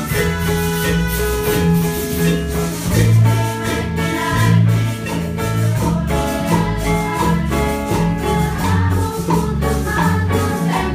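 A school ensemble playing a Latin pop song live: melodicas carry the tune over electric bass, drum kit and hand percussion, with a group of students singing in unison. The bass line repeats steadily under held reedy melody notes.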